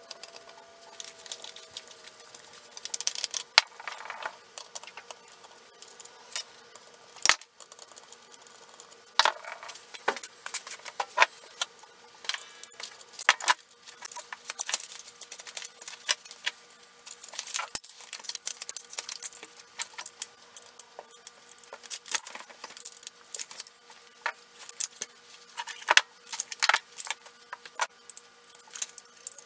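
Many quick, irregular clicks and clatters of small plastic and extruded-aluminium Unimat 1 toy lathe parts being handled, taken apart and fitted together on a workbench, over a faint steady hum.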